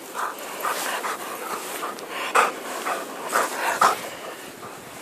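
Chesapeake Bay Retriever panting hard, in quick breaths about three a second, winded from plowing through deep snow.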